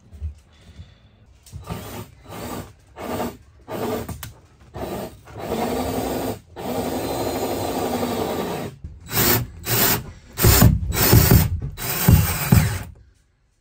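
Cordless drill-driver driving screws up through a cockpit locker's flange: a run of short bursts, one longer steady run of about three seconds in the middle, then more bursts.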